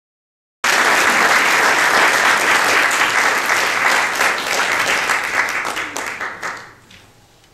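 Audience applauding, starting suddenly about half a second in, then thinning to a few scattered claps and dying away about seven seconds in.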